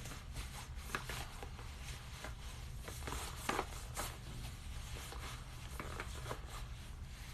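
Rustling, crinkling and light clicks of cosmetic packaging being handled, with a couple of sharper crinkles about three and a half and four seconds in, over a low steady hum.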